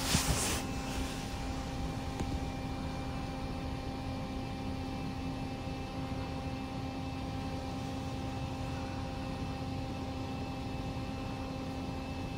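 Steady room tone: an even electrical hum with a few constant tones over a hiss, like an appliance running in a quiet bedroom. A brief rustle right at the start.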